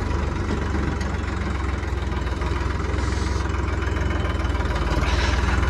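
Tractor's diesel engine idling with a steady, even chugging.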